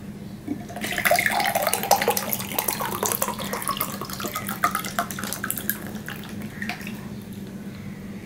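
Water poured from a plastic jug into a glass tumbler, a splashing pour whose pitch rises as the glass fills, starting about a second in and tailing off after about five seconds.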